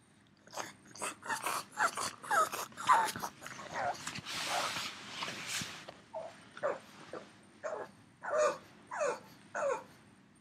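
A dog vocalising in a quick run of short calls that bend up and down in pitch, with a breathy, hissing stretch of about two seconds in the middle; after that the calls come singly, about two a second.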